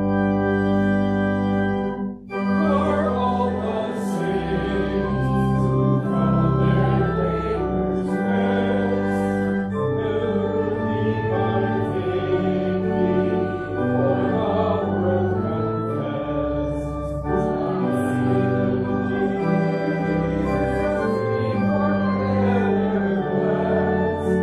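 Congregation singing a hymn with pipe organ accompaniment. The organ plays alone for about the first two seconds, then, after a brief break, the singing comes in.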